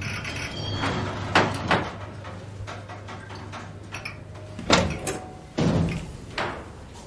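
Several loud bangs and knocks at irregular intervals over a steady low hum.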